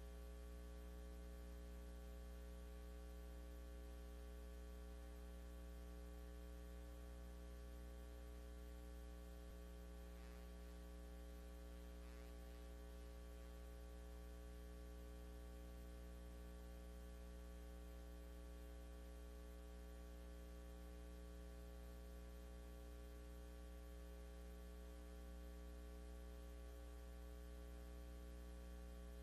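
Faint, steady electrical mains hum: a low drone with a row of fixed higher tones above it, unchanging throughout, with no speech.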